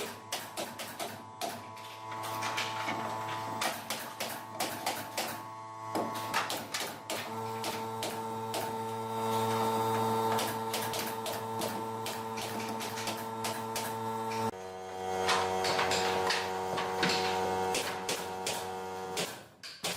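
Electric power tool running steadily with a pitched whine, over a stream of sharp clicks and knocks. The tool's pitch shifts abruptly about seven seconds in and again about fourteen and a half seconds in.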